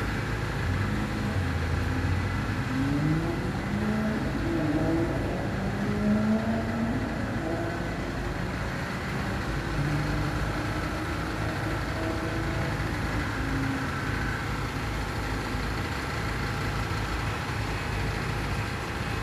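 Engine-driven concrete-finishing machinery running steadily. Its engine pitch rises and falls several times in the first half, over a constant mechanical drone.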